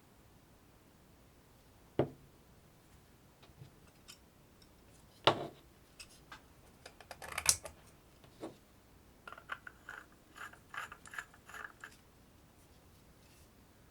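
A few sharp clicks and knocks spread over several seconds, then a quick run of small clicks and rattles: small hard parts being handled.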